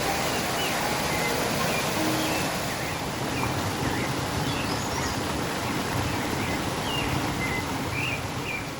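Steady rush of falling water from a waterfall, with small birds chirping throughout.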